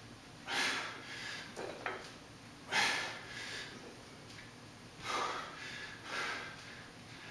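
A man breathing hard, with a loud forceful exhalation on each barbell thruster: four breaths about one to two seconds apart, a sign of heavy exertion. A light click comes about two seconds in.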